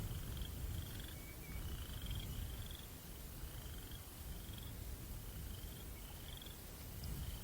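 Crickets chirping in short trills that repeat about every three-quarters of a second, over a steady low rumble of wind.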